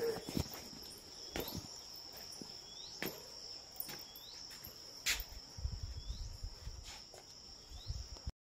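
A steady high-pitched drone of insects, with scattered clicks and knocks and a low rumble from about five seconds in; it cuts off abruptly near the end.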